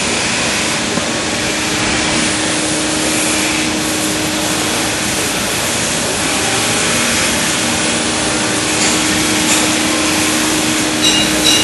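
Belt grinder running steadily with a motor hum, a knife held against its abrasive belt giving a continuous grinding hiss.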